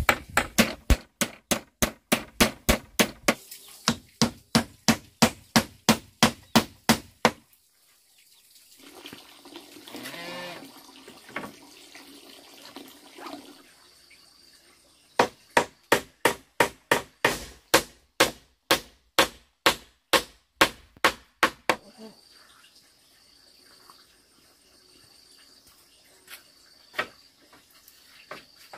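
A hand tool striking bamboo in fast, even blows, a little over three a second, in two long runs with a pause between. In the pause there is a drawn-out call with a wavering pitch.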